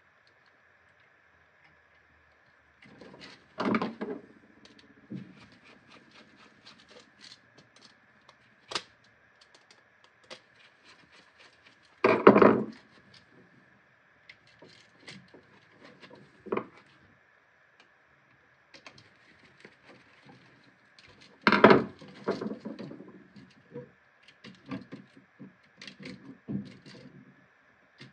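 Clicks, scrapes and rustles of gloved hands fitting wires to a GFCI receptacle's screw terminals in a wall box, with three louder knocks several seconds apart.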